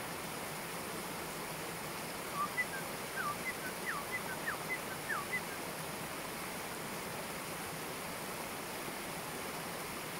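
A shallow stream rushing over a small rocky cascade, a steady hiss of running water. About two seconds in, a bird calls a quick run of short falling notes lasting about three seconds.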